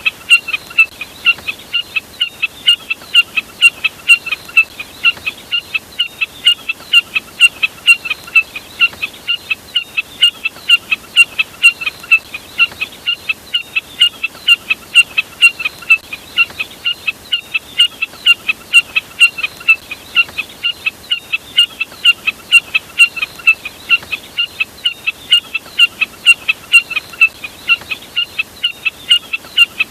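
Recorded jack snipe call: a steady run of short, sharp notes repeated about three times a second.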